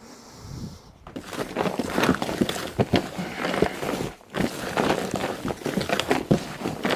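Hands churning a dry potting mix of perlite, orchid bark and soil in a plastic tub: a dense, irregular crunching and rustling that picks up about a second in.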